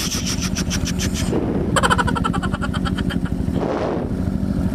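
Yamaha XT250's single-cylinder four-stroke engine running at a steady idle, with a fast, even ticking over it for much of the time.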